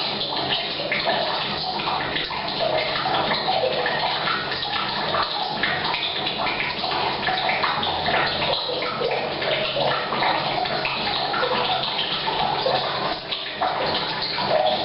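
Rain on the roof mixed with a stream of mains water pouring into a tank, a steady splashing that echoes in a small tiled bathroom.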